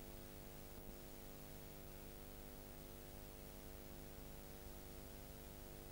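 Near silence: a faint steady electrical hum with hiss underneath, unchanging throughout.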